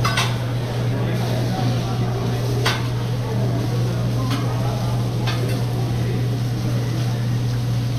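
Metal spatulas clacking against a hot cooking griddle several times, over a steady low hum.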